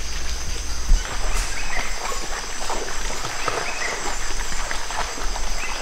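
Short wild animal calls repeating about every two seconds over a steady, high-pitched insect chorus.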